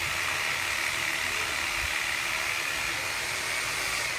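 Handheld power saw cutting into a tree trunk, a steady high-pitched buzzing cut.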